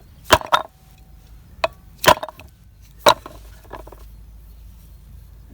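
Sharp, hard knocks of the removed old brake pads being handled. There are about six at uneven intervals, the loudest about two seconds in.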